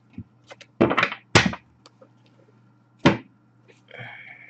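Trading cards slapped down onto a glass tabletop as they are dealt into piles: a few sharp slaps and taps, the loudest about one and a half and three seconds in.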